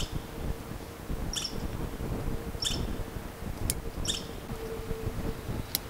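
A small animal calling: four short, high chirps, evenly spaced, over a low rumble. Two sharp clicks, one past halfway and one near the end.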